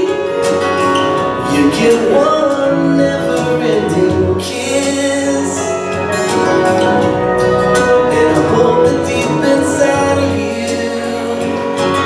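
Music playing: a song with singing over instruments and a beat.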